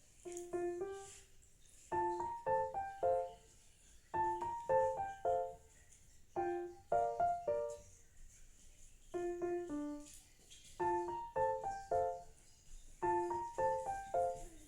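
Background piano music: short phrases of a few light, bright notes, repeating about every two seconds.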